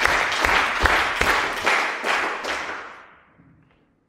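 Spectators clapping and applauding after a point in a table tennis match, the applause dying away over about three seconds to near silence.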